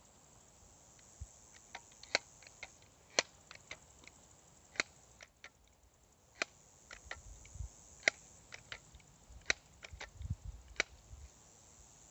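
A BB gun being fired again and again: about six sharp snaps spaced a second or more apart, with fainter clicks between them and a few low thumps.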